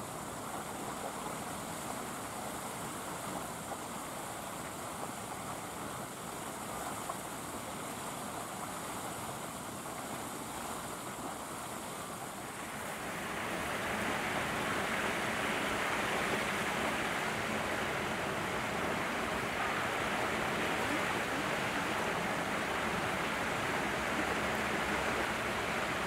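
Steady rushing of water from an artificial waterfall pouring over a concrete wall, which grows louder and brighter about halfway through.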